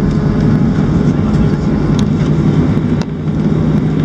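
Boeing 737 cabin noise during landing: a steady engine and airflow rumble with a low hum, and light knocks and rattles now and then.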